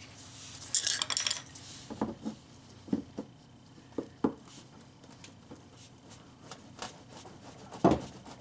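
Metal hand tool prying at a stubborn plastic retaining clip under a car's front bumper cover. A brief scraping rattle comes about a second in, then scattered clicks and taps, with a louder knock near the end.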